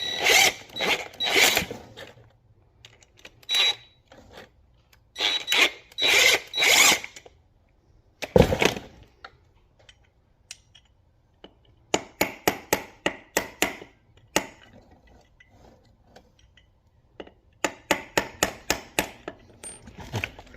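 Hand ratchet clicking in several short runs as connecting-rod bolts are backed off, with one loud knock a little past eight seconds in.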